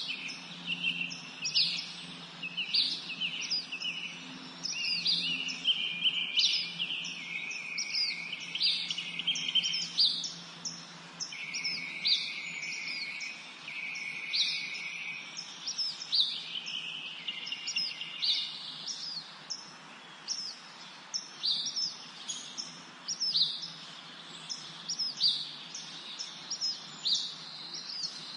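Several songbirds chirping and singing at once, many short high chirps overlapping throughout, with a steadier trill held for a few seconds around the middle.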